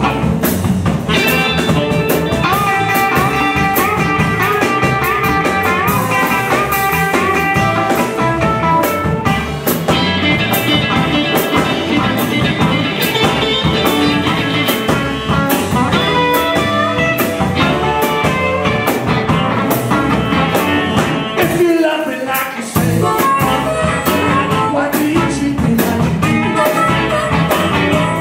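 Live blues band playing an instrumental passage: electric guitars, drum kit and saxophone, with no singing. The band drops out briefly about three-quarters of the way through, then comes back in.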